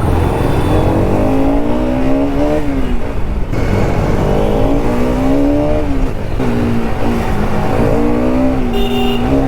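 Sport motorcycle engine accelerating hard through the gears. Its pitch climbs and then drops back at each upshift, about three or four times, over a steady rushing noise.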